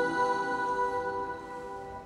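Music: a held chord of steady ringing tones, fading away.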